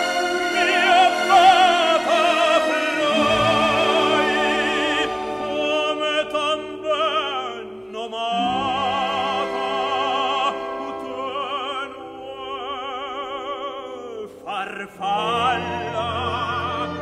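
Operatic singing over an orchestra: a voice with strong vibrato holding long notes above sustained instrumental chords.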